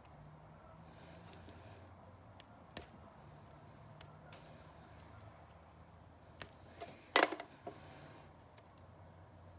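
A few short, sharp snips and clicks from working on small wires and a plastic connector, the loudest cluster about seven seconds in, over a faint steady low hum.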